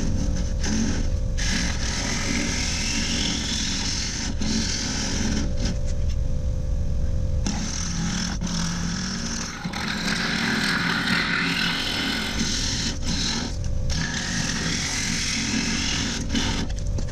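Wood lathe running steadily while the spinning walnut piece is worked against, a continuous mechanical rumble with a rough rubbing noise over it, starting and stopping abruptly.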